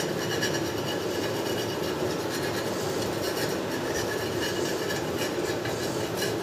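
A steady, even rumbling noise.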